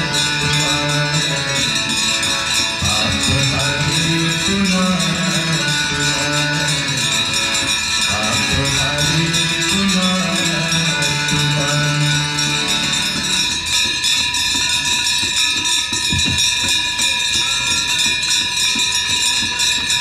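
Devotional chanting in a low voice, held notes stepping up and down, over bells ringing steadily. About two-thirds of the way through the chant stops and the bell ringing carries on alone.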